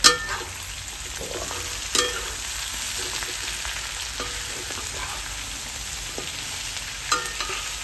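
Pork ribs and sliced onions sizzling in a frying pan, stirred and turned with a spatula. Sharp clacks of the spatula on the pan come right at the start, about two seconds in and near the end.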